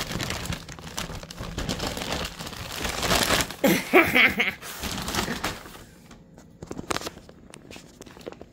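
Plastic bags crinkling and rustling as they are moved about, dense for the first six seconds, then thinning to a few scattered crackles.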